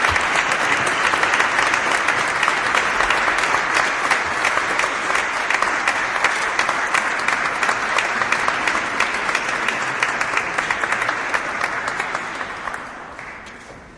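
Large crowd applauding, a dense continuous patter of many hands clapping, fading out over the last two seconds.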